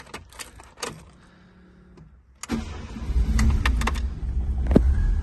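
Light clicks of the key in the ignition and a faint hum with the ignition on, then about two and a half seconds in the 1991 Ford Fiesta XR2i's fuel-injected four-cylinder engine starts at once and settles into a steady low idle. A sharp click comes near the end.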